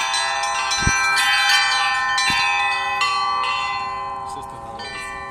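A set of church bells rung by hand, several bells of different pitches struck in quick succession. A heavier strike comes about a second in and again past two seconds. The strikes thin out after about three seconds, and the ringing fades.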